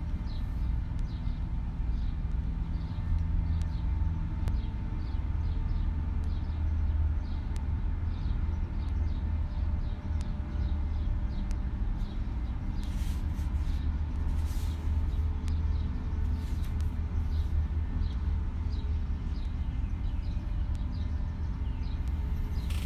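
Steady low background rumble with faint high chirps now and then, and a couple of brief rustles about halfway through.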